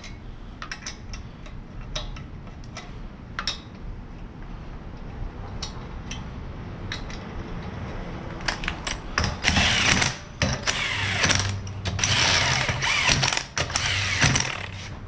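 Cordless impact wrench running lug nuts onto a car wheel in several bursts of a few seconds each, starting about eight seconds in. Before that come scattered clicks and knocks as the wheel and nuts are handled.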